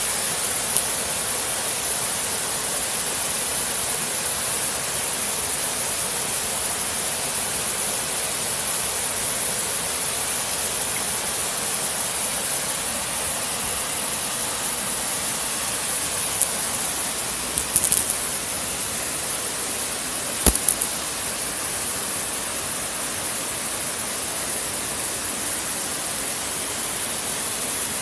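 Steady rushing noise of a flowing river with a constant high hiss over it, broken by a few short sharp clicks about two-thirds of the way through.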